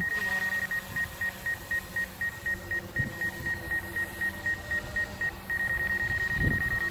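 High-pitched electronic warning beep from the DJI controller app, pulsing about four times a second, then holding as one continuous tone for the last second and a half: the obstacle-proximity alarm for the Mavic 2 Zoom with branches close around it.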